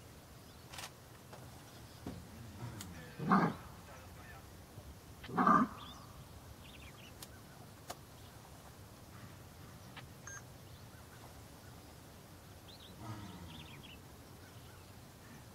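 Two short, loud animal calls about two seconds apart, with a fainter call near the end and faint bird chirps in between.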